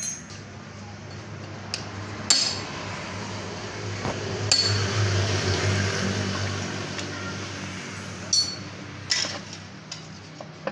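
Metal parts clinking as a cast metal cover housing is handled and fitted against an engine block: about five sharp clinks with a short ring, the loudest two and four and a half seconds in, over a steady low hum.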